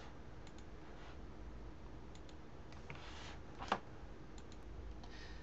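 A few sparse computer mouse clicks over low room noise. The loudest click comes about three and a half seconds in.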